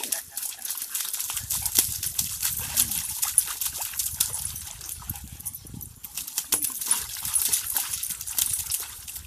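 Dogs play-wrestling in a shallow muddy puddle: repeated splashing and sloshing of paws in water and mud, with dog play sounds, and a low rumbling stretch through the first half.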